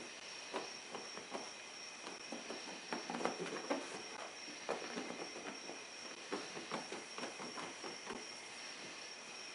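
Cotton towel rubbing over a plastic headlight lens by hand, faint irregular swishing strokes several times a second, buffing on the UV protectant. A steady faint high-pitched hiss runs underneath.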